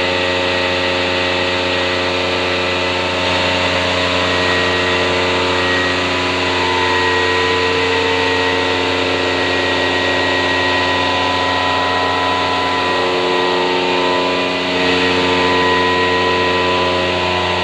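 Milking-parlor machinery running with a steady mechanical hum made of several constant tones, dipping briefly and coming back a little louder near the end.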